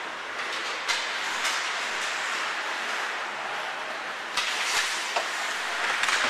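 Ice hockey play: skate blades scraping and hissing on the ice, with several sharp clacks of sticks and puck, one about a second in and a cluster around four and a half to five seconds.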